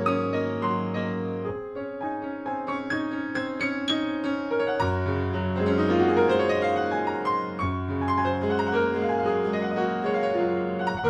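Background piano music: a gentle melody of single notes over long held bass notes that change every few seconds.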